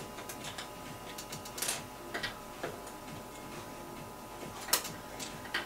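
Irregular light clicks and ticks of a screwdriver turning small screws into the metal bottom panel of a Pioneer CDJ-800 mk2, with two sharper clicks, about one and a half seconds in and near the end.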